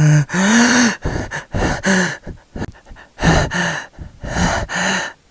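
A person gasping 'ah… ah…' in short, repeated breaths as a sneeze builds up, about nine gasps in uneven groups, the sneeze not yet coming.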